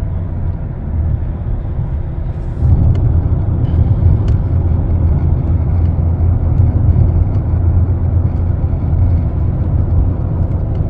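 Steady low drone of road and engine noise inside the cabin of a 2005 Mercedes E320 CDI, a turbodiesel inline-six, driving on the interstate. The drone steps up louder about three seconds in and stays there.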